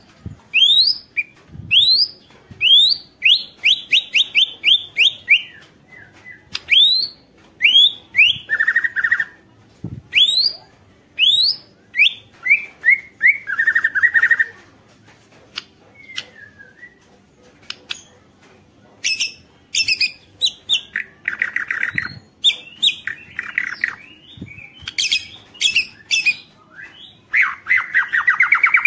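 White-rumped shama (murai batu) singing at full volume: fast runs of rising whistled notes, broken several times by short, harsh buzzing rattles.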